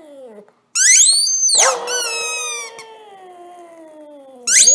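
A squeaky toy squeaks about a second in, and a Shih Tzu answers with one long howl that slowly falls in pitch; the toy squeaks again near the end.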